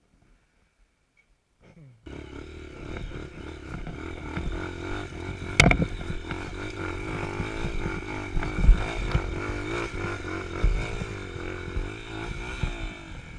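After about two seconds of near silence, a dirt bike's engine starts up suddenly and runs with its pitch wavering up and down as the bike climbs a rough slope, with several sharp knocks from the chassis over the bumps.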